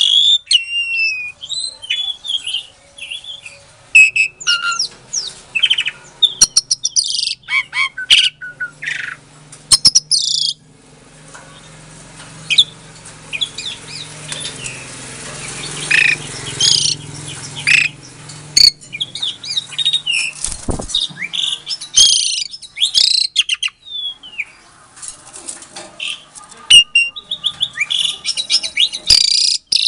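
Javan pied starling (jalak suren) singing: a varied run of loud whistles, rising and falling notes, harsh chatters and rapid clicking rattles, broken by short pauses, with a quieter stretch near the middle.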